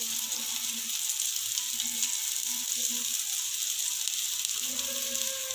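Dahi (hung-curd and cheese) kebab patties sizzling steadily as they fry on a flat nonstick tawa over a low flame, one side already browned.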